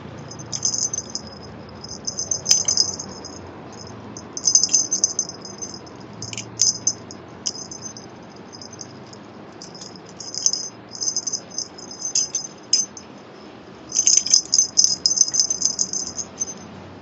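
A small jingle bell, as on a cat toy, jingling in short irregular bursts while a kitten plays, with the longest and loudest run near the end.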